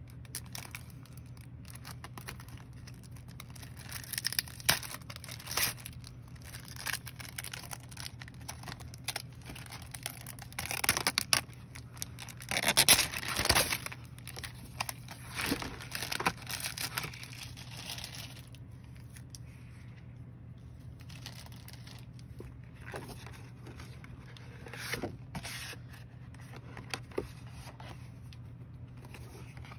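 Packaging being torn open and crinkled by hand during an unboxing: a run of short tearing and rustling sounds, busiest and loudest about halfway through, then lighter, sparser handling.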